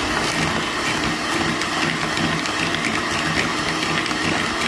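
Electric hand mixer running steadily, its two beaters creaming butter and sugar in a bowl.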